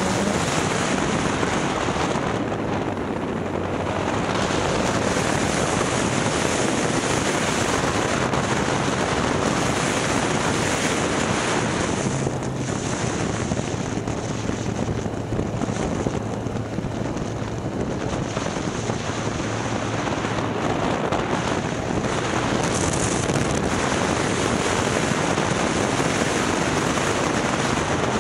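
Wind rushing over the microphone at riding speed on a BMW S1000XR motorcycle, with the bike's inline-four engine running faintly underneath.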